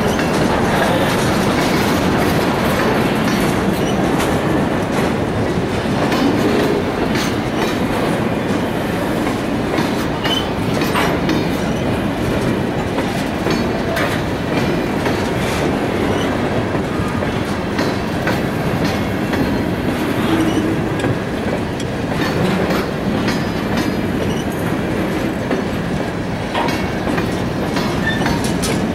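Freight train of open-top hopper cars rolling past at steady speed: a continuous rumble of steel wheels on rail, with scattered sharp clicks and clanks from the wheels and couplings.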